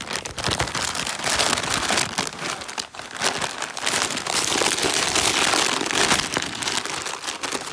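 Product packaging crinkling and crackling as it is handled, a dense run of small crackles.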